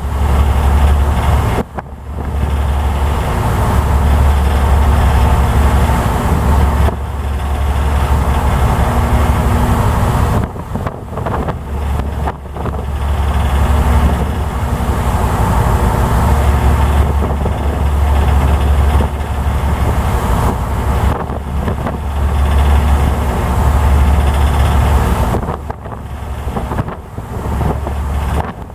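Steady low drone of a ferry's engines heard from the deck, mixed with wind buffeting the microphone, with several brief dips in level.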